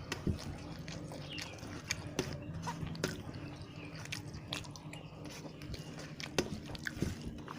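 Close-miked eating sounds: chewing, with scattered wet clicks and smacks from the mouth over a faint low hum.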